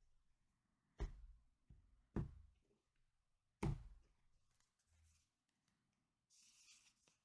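Tarot cards handled on a tabletop: three soft knocks about a second apart, then a short brushing sound near the end.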